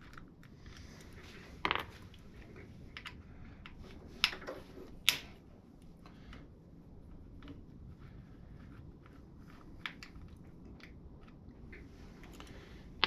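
Small metallic clicks and taps of a hex key turning stainless button-head Allen screws out of a motorcycle clutch cover, with a few sharper clicks about two, four and five seconds in.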